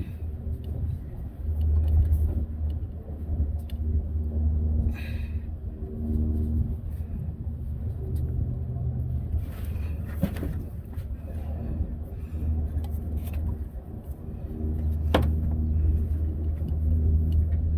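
A low, uneven rumble that swells and fades, with a few faint metal clicks and one sharper knock near the end.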